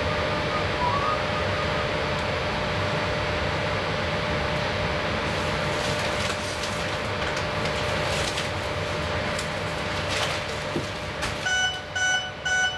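Helsinki Metro M100 train standing at a platform with its doors open, its onboard equipment running with a steady hum and a thin steady tone, plus a few light clicks. Near the end, three short electronic beeps: the door-closing warning.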